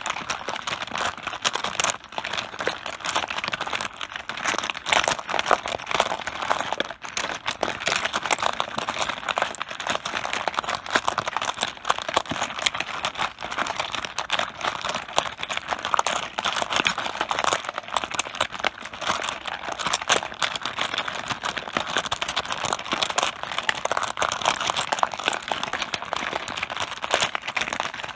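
Mahjong tiles clacking against one another on a mahjong table in a dense, continuous clatter of small sharp clicks.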